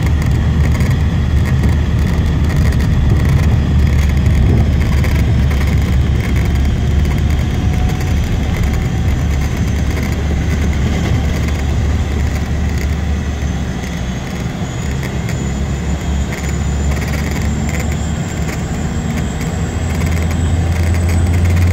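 Cessna 208 Caravan's PT6A turboprop engine and propeller heard from inside the cabin while the aircraft moves on the ground: a steady low drone with a high turbine whine. Over the second half the whine rises in pitch and the sound grows louder near the end.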